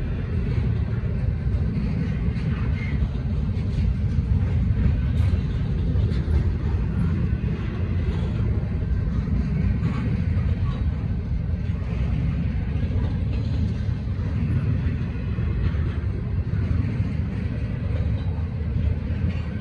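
Loaded double-stack intermodal well cars rolling past on a freight train: a steady, loud rumble of steel wheels on rail with constant clatter, no single impact standing out.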